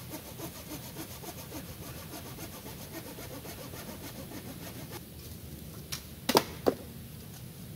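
Hand saw cutting through a wooden branch in quick, even back-and-forth strokes that stop about five seconds in, followed by three sharp knocks.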